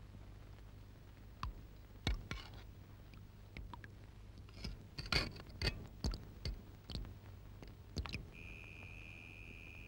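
Faint, scattered clicks and clinks of metal kitchen utensils and a saucepan being handled on a stovetop, about a dozen over several seconds. Near the end a steady high tone starts and holds.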